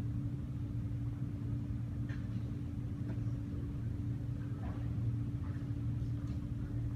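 A steady low mechanical hum with a constant tone, and a few faint short sounds over it.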